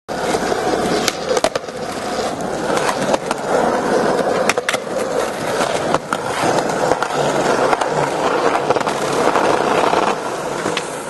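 Skateboard wheels rolling over rough concrete, a steady gritty rolling noise, broken by several sharp clacks of the board knocking against the ground.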